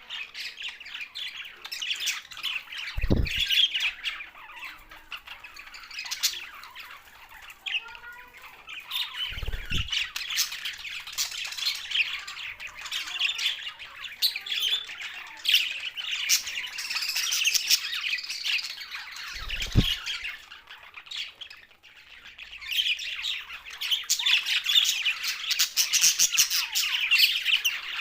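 A group of budgerigars chattering and squawking without a break, many fast, high chirps overlapping. Three dull low thumps come through the chatter.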